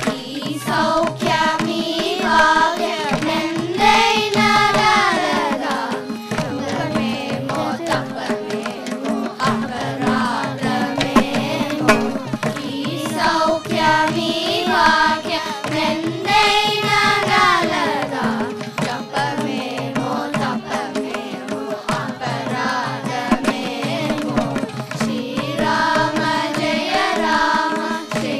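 A children's choir singing a Carnatic song in unison, with gliding, ornamented melodic lines, accompanied by violin and by mridangam and ghatam drumming.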